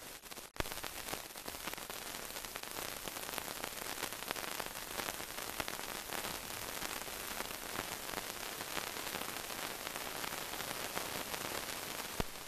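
Steady hiss and crackle of an old film's blank soundtrack, with a sharp click about half a second in and another near the end.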